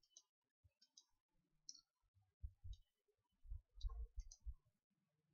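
Near silence with a scattered series of faint short clicks, some paired with soft low thumps, bunched in the middle.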